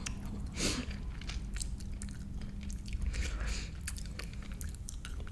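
Close-miked chewing of a jelly bean: many small, irregular wet clicks and crunches.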